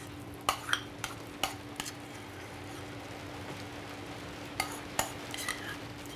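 Metal spoon clinking and scraping against ceramic bowls as herbed ricotta dip is scooped from one bowl into another. The taps come in two groups: about five in the first two seconds, then three more around five seconds in, over a faint steady low hum.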